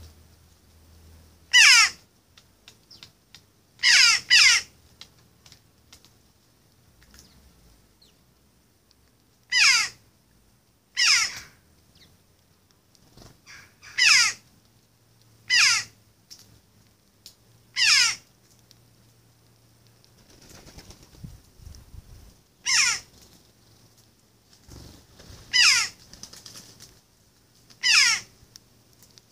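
Jackdaw calling: about eleven short calls a few seconds apart, two in quick succession about four seconds in.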